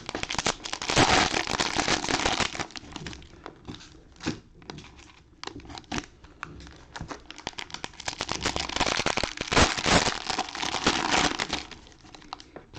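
Cellophane wrappers on trading-card packs crinkling and tearing as the packs are ripped open. There are two long spells of loud crinkling, about a second in and again near the end, with scattered crackles between.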